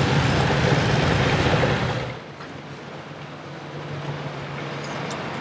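An engine's steady low rumble with heavy outdoor noise over it, cut off sharply about two seconds in. A quieter steady low hum follows.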